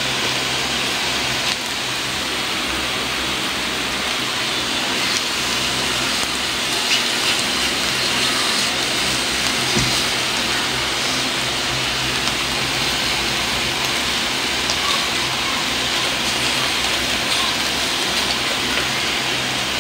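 Slices of pork sizzling steadily on the hot grill plate of an Imarflex 8-in-1 electric griller.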